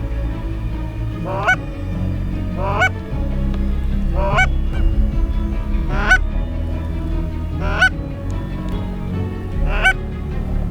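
Goose honking: six separate single honks, each rising in pitch, spaced about one and a half to two seconds apart, over a steady low rumble.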